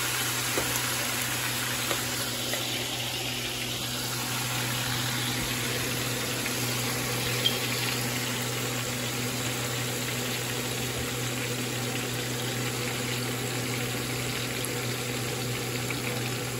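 Trout pieces deep-frying in a stainless steel pan of hot oil: a steady, vigorous sizzle and bubbling, with a few light ticks, the sharpest about seven seconds in.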